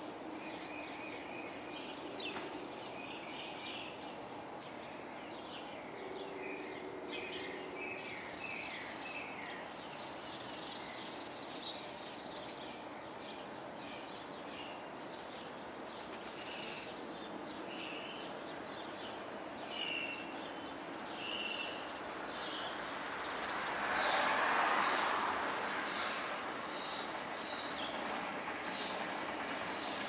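Outdoor street ambience: birds chirping in short, repeated high notes over a steady background hum, with a vehicle passing, rising and fading about three-quarters of the way through.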